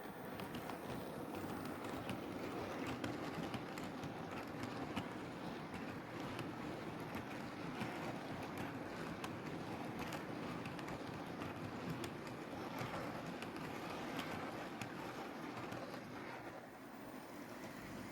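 OO gauge model train running along the track: a steady whirr of wheels and motor with frequent small clicks as the wheels pass over rail joints.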